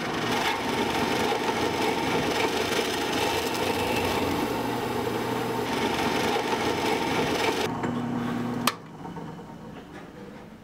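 Electric power tool working wood, running steadily with a grinding, rasping hiss for about eight seconds. Near the end the hiss stops and the motor runs free for about a second, then cuts off with a sharp click.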